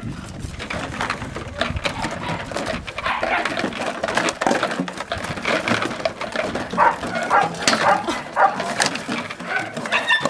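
Two-month-old Belgian Malinois puppy giving short, irregular yips and whimpers, mixed with scattered knocks and rattles.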